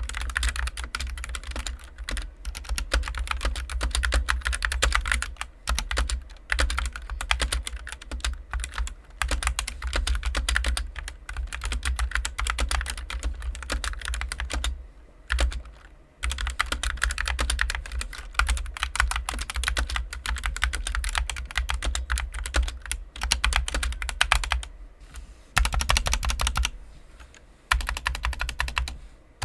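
Epomaker SK61 mechanical keyboard with factory-lubed Gateron optical yellow linear switches and a foam-modded case, typed on fast and without stopping: a dense stream of key clicks with a few brief pauses.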